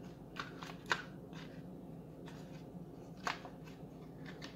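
A few light clicks and taps of fingers handling a Bluetooth speaker's plastic housing and circuit board as it is fitted back in, over a faint steady low hum.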